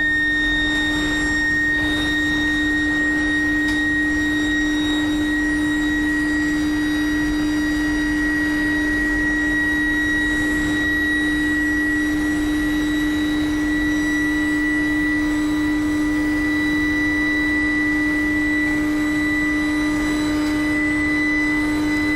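Induction heating furnace for steel billets running: a steady low hum under a high, steady electrical whine that creeps slightly higher in pitch.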